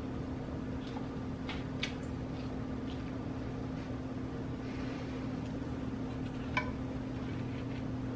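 Steady hum of a kitchen appliance, with two light clinks of utensils against dishes, one about two seconds in and one about six and a half seconds in.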